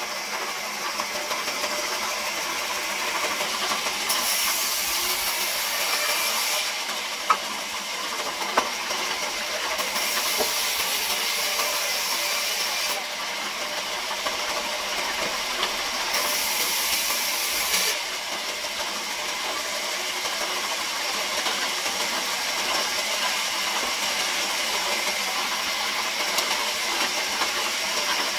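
Large vertical band saw running and ripping planks, a steady hiss of blade through wood that brightens and eases in stretches as boards are fed through. Two sharp knocks about seven and eight and a half seconds in.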